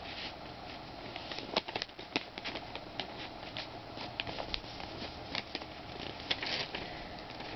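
A sheet of paper being folded and creased by hand: scattered short crinkles and rustles over a faint hiss.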